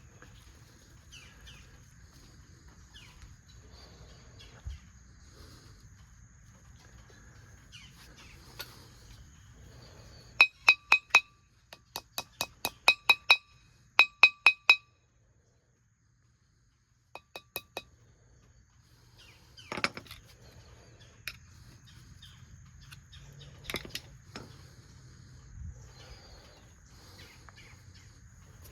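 Hammer tapping the rear wheel bearing into the hub of a new brake rotor to seat it evenly: quick runs of sharp, ringing metallic taps from about ten seconds in, then a few more taps and scattered knocks later.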